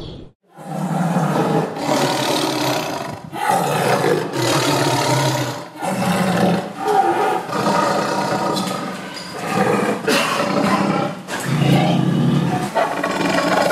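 Big cat roaring: a string of about ten loud roars, each a second or so long with brief breaks between, starting just after a short gap.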